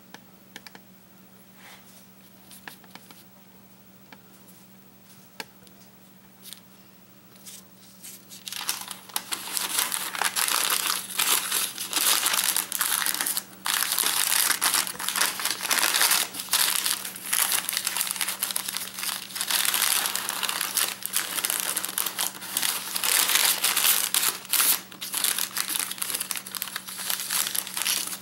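Thin kitchen paper crinkling and crackling as hands fold it to wrap a bar, starting about eight seconds in after a few faint taps.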